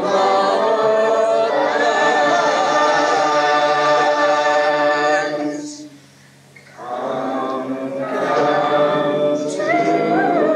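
Choir singing a cappella. The voices hold a sung line, break off together for a breath about six seconds in, and then come back in.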